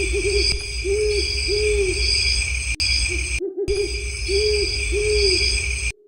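An owl hooting, a quick run of short hoots followed by two longer hoots. The same call plays twice, with a brief break near the middle, over a steady low rumble and a high hiss.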